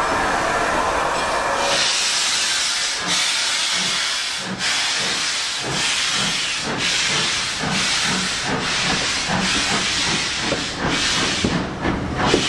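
A steam train pulling away from a station: loud steam hissing from the locomotive's open cylinder drain cocks, with a regular beat that quickens as the train picks up speed and the carriages roll past.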